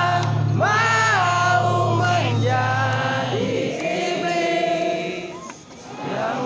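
Live rock band with singing played over a concert PA, heard from within a large crowd. A low held note stops about three seconds in, and the music dips briefly near the end.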